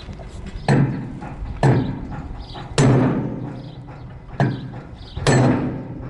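Hammer blows on a steel pipe held as a drift against a part of a combine header's auger drive: five hard metallic strikes roughly a second apart, each ringing briefly.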